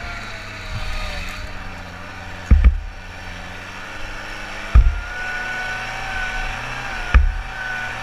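Off-road buggy engine running steadily under way, its pitch wavering and climbing a little about halfway through. Three heavy low thumps about two seconds apart as the buggy jolts over rough ground.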